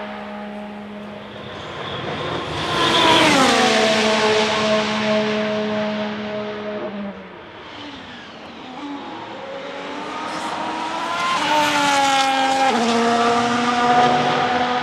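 Ferrari F1-75 Formula 1 car's 1.6-litre turbocharged V6 hybrid engine running at high revs as the car passes, its pitch falling steeply as it goes by about three seconds in. After a quieter spell, an engine note rises again and passes with another fall in pitch about twelve seconds in.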